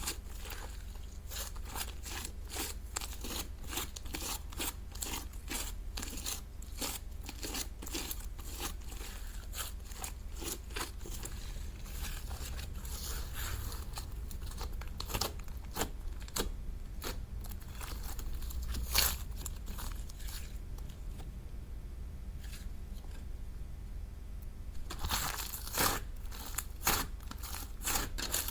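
Slime being worked, giving a steady run of small crisp clicks and crackles, thickest near the end.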